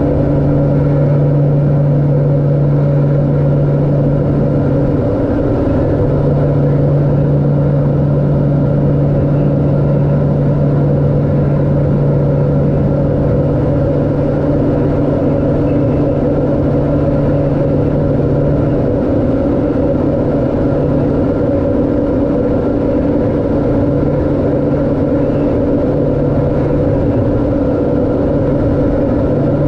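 LET L-410 twin-turboprop engines and propellers heard from inside the cockpit in cruise descent: a loud, steady drone with a low propeller hum that wavers and comes and goes in the last third.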